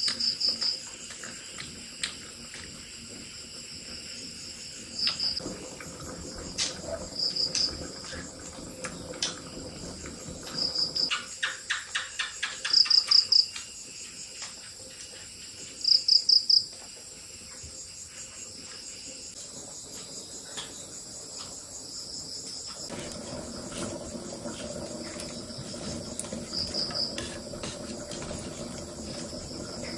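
Insects chirping in short repeated trills every few seconds, over a steady high-pitched insect drone. A faint low hum joins about two-thirds of the way through.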